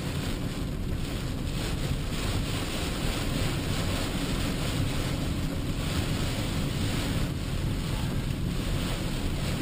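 Steady rumble of tyres on a wet highway and rain on the windshield, heard inside a Honda Odyssey minivan's cabin while driving through heavy rain.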